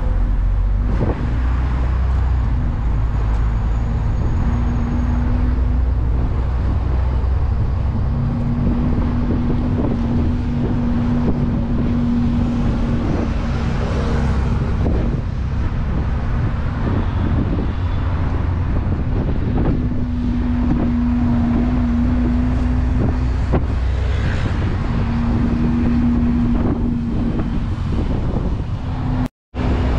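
Moving tour bus heard from its open top deck: a steady low rumble of engine and road noise, with wind buffeting the microphone and a hum that comes and goes every few seconds. The sound drops out briefly just before the end.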